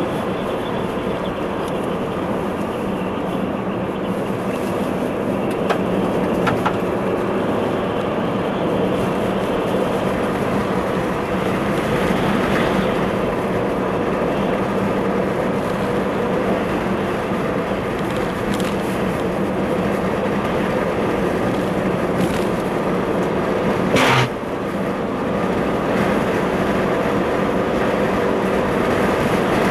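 A car driving at steady speed on a paved road: an even hum of engine and tyre noise. A single sharp knock sounds late on.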